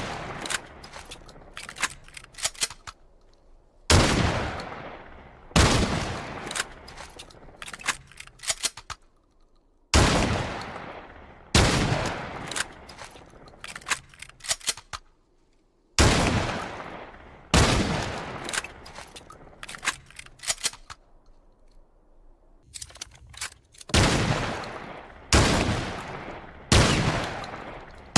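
A series of shotgun blasts a few seconds apart, each one ringing away over about a second, with quick clusters of sharp clicks between the shots.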